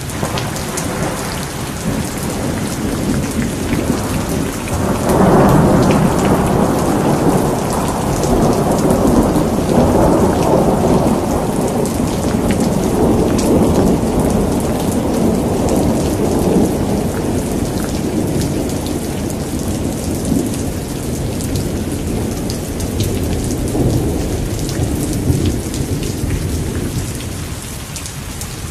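Heavy, steady rain with a dense patter of drops, under a long roll of thunder that swells about five seconds in, rumbles on for well over ten seconds and dies away, with a smaller rumble near the end.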